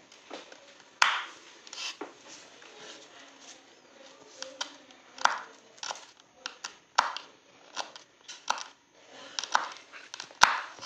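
Irregular sharp knocks and taps of kitchen prep work, about a dozen over ten seconds, with the loudest about a second in and near the end.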